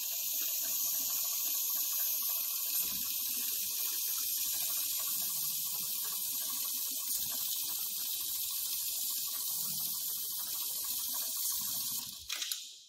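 HighTex ASM911 programmable pattern sewing machine running a stitching cycle on heavy ratchet-strap webbing: a steady hiss-like running noise that cuts off about twelve seconds in.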